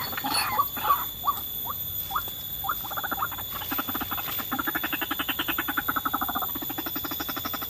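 White-breasted waterhen calling: a few short sliding notes, then from about three seconds in a long, fast, even run of pulsed notes at roughly ten a second.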